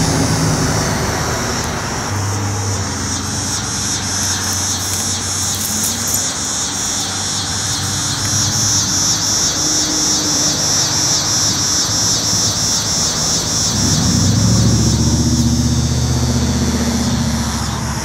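Annual cicadas (Neotibicen) singing in the tree canopy: a loud, high, pulsing buzz that holds steady throughout. A low engine hum runs underneath and swells near the end.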